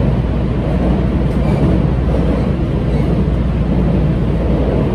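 JR Central 313 series electric train running at speed across a river bridge, heard inside the passenger car: a loud, steady rumble of wheels and running gear.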